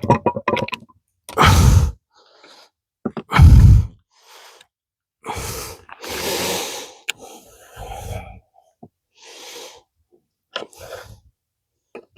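A run of heavy, effortful breaths, about eight in all, the two loudest about a second and a half and three and a half seconds in. A few sharp metal clicks fall between them as a screwdriver works retaining clips off a transmission shaft.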